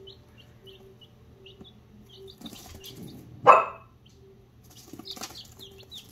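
Easter Egger and Barred Plymouth Rock chicks peeping, short falling peeps a few times a second. A dog barks once, loudly, about three and a half seconds in.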